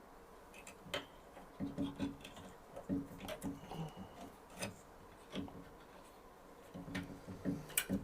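Irregular small clicks and rubbing from hands working the small copper wires of network cables, with a few sharper ticks from handling the cable and tools.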